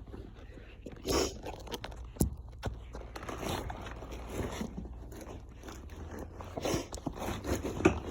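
Hand tools and small metal parts scraping and clicking against a motorcycle clutch basket, with irregular knocks and rustles, the loudest about a second in.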